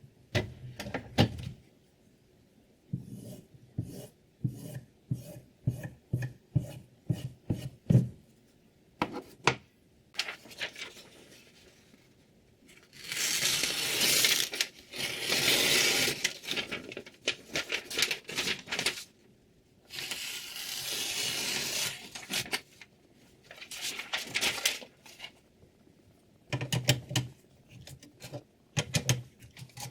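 Handling a knife and a guided sharpening rig: many short clicks and taps, with two longer scraping or tearing passes of a few seconds each near the middle.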